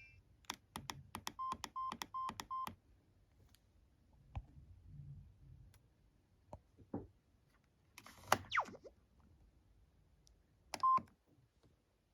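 Samsung SGH-E350 mobile phone being operated by its keys: a quick series of button clicks, four of them with identical short key beeps, in the first three seconds. Scattered handling clicks follow, and one more clicked key beep comes near the end.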